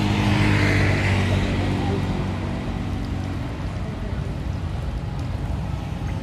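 Engine of a motor vehicle passing on the road, loudest about a second in and fading away within the first couple of seconds, followed by a steady low rumble.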